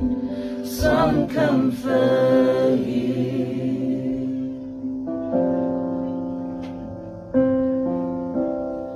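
Several voices singing a slow harmony that dies away about three seconds in, followed by slow keyboard chords, each held and fading before the next is struck.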